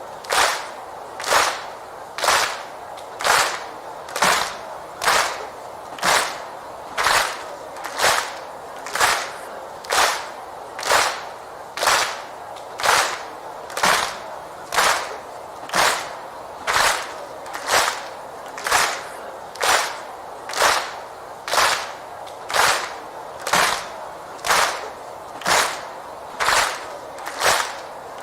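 A crowd clapping in unison, slow and steady at about one clap a second, with a constant crowd murmur between claps.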